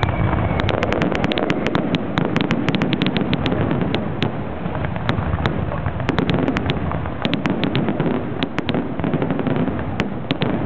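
Fireworks display: a dense, rapid string of aerial shell bursts and crackling bangs. A falling whistle fades out just after the start.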